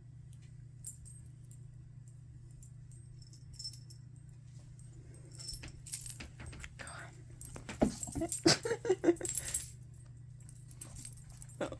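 Metallic jingling and rustling in irregular bursts as pets move about, starting about five seconds in and loudest around eight to ten seconds, after a single click near the start.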